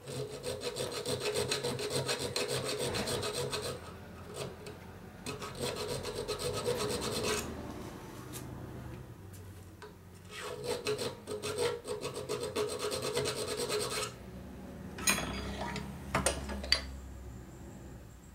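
Metal being filed by hand on a small Harley-Davidson 4-speed transmission part, in three bouts of quick rasping strokes with short pauses between. The file is taking metal off so the part will fit. A few sharp metal clicks come near the end as the part is handled.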